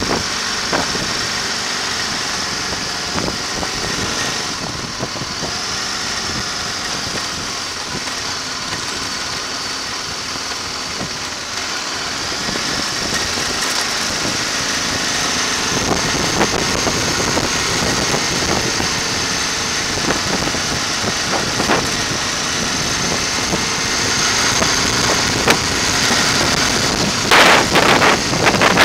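A vehicle's engine running and its tyres on the road while it drives slowly, heard steadily, with a few louder noisy rushes near the end.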